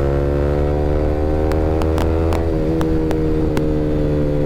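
Yamaha R15 V3's single-cylinder engine running through an Akrapovic R9 exhaust at a steady pitch while riding. In the middle come about seven sharp exhaust pops: backfires, which the rider likens to firecrackers going off.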